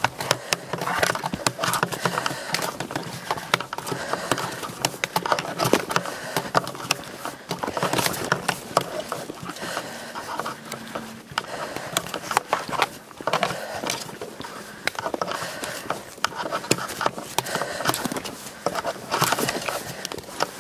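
Footsteps crunching and scuffing on a rocky dirt trail, with irregular sharp clicks of trekking pole tips striking stone.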